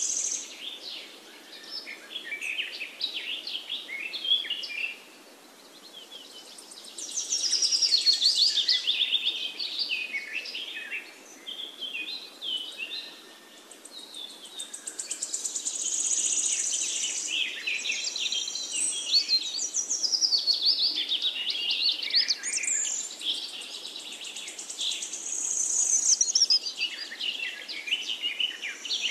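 Birdsong: many birds chirping and trilling, with a high buzzing that swells in and out a few times.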